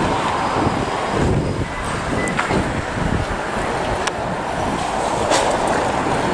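Street traffic: cars and heavier vehicles passing with steady road noise and a low rumble.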